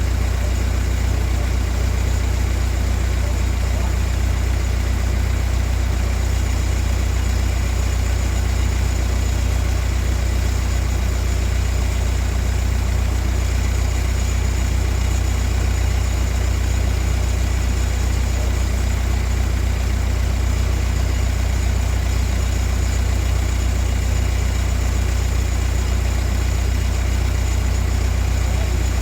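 A steady low machine hum with a faint, regular pulse, unchanging throughout.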